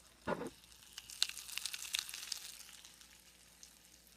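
Pop Rocks candy crackling as it fizzes in water, a dense patter of tiny high pops that builds about a second in and fades away by about three seconds. A brief dull sound comes just after the start.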